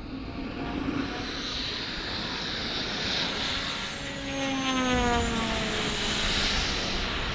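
Large-scale RC Spitfire model flying past, its engine and propeller droning. The sound grows louder and drops in pitch as it passes, about five seconds in.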